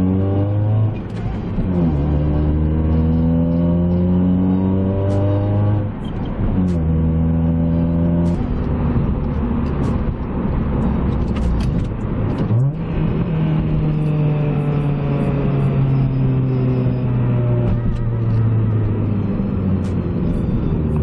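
2005 Acura RSX's 2.0-litre four-cylinder engine accelerating through the gears of its manual gearbox. The engine note climbs, then drops sharply at each upshift, about four shifts in all.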